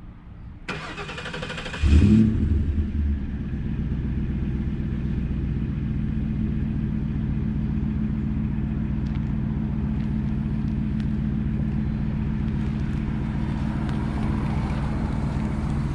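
A 1999 Ford Crown Victoria's 4.6 L V8 is cranked by the starter for about a second, catches with a loud burst, then settles into a steady low idle rumble through Flowmaster mufflers. It is a cold start on which the high idle does not pick up, a fault the owner cannot explain; the engine is due a tune-up.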